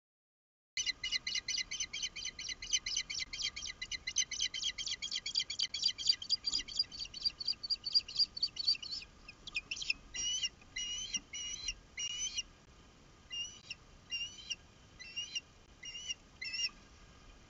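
Osprey calling in alarm at an intruding osprey on the nest: a fast run of sharp, high chirps, about five a second, for roughly eight seconds, then slower, separate calls about one or two a second that stop shortly before the end.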